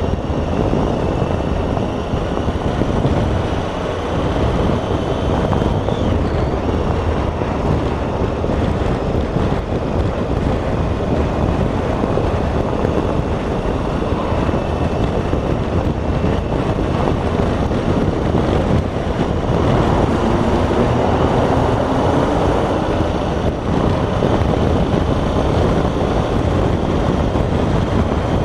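Loud, steady wind rush on the microphone of a motorcycle being ridden at road speed, with the bike's engine running underneath it.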